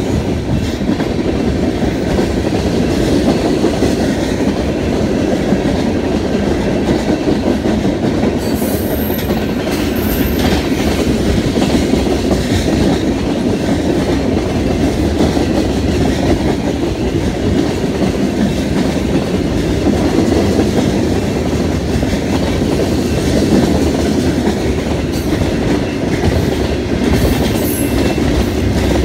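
Freight cars (boxcars, then covered hoppers) of a long manifest train rolling past at close range: a steady rumble of steel wheels on the rails. Brief high-pitched wheel squeals come about nine and ten seconds in, and again near the end.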